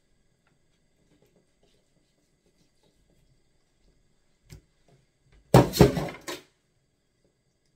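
Kitchenware being handled: a light knock, then about a second later a short, loud clatter of several quick strikes.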